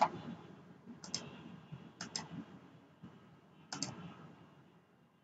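Computer mouse clicking four times, picking points: a sharp click at the start, then three quick double ticks about a second or two apart.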